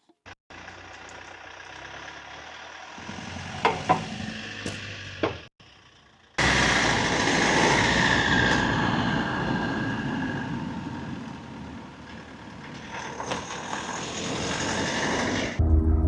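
A motor vehicle running, heard in short edited segments: engine hum with road noise and a couple of knocks, then a louder stretch of even noise. Near the end a steady, loud, low-pitched engine drone cuts in.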